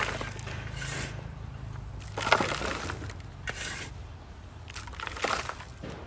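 Dry soil mix with charcoal being scooped and tipped into a pot: about five rough scraping, pouring sounds a second or so apart, the loudest about two seconds in.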